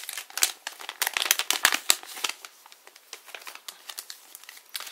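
Plastic blind-bag wrapper crinkling as it is handled, dense for the first couple of seconds, then sparser crackles.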